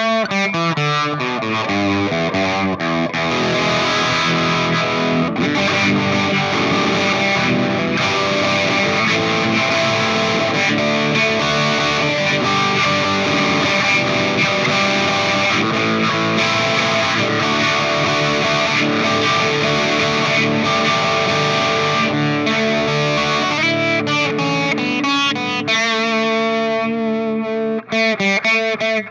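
Electric guitar played through distortion and effects, a dense, continuous wash of sustained notes with a brief break near the end.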